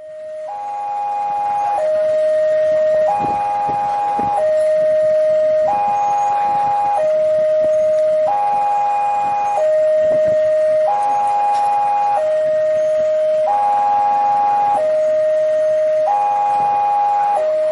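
Two-tone siren alternating steadily between a single pure tone and a richer chord-like tone, each held for about a second and a quarter.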